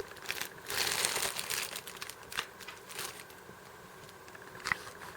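Packaging crinkling and rustling as the jigsaw is handled and unwrapped, dying down about three seconds in, with a single click near the end.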